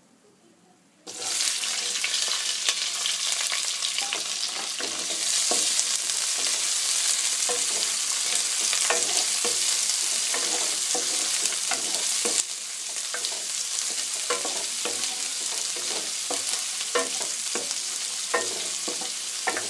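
Sliced onions dropped into hot oil in a nonstick kadhai about a second in, sizzling at once, with a wooden spatula scraping and tapping against the pan as they are stirred. The sizzle eases a little about two-thirds of the way through.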